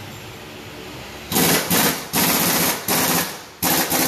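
Pneumatic impact wrench rattling in short bursts: about five bursts starting a little over a second in, each under a second long with brief gaps between.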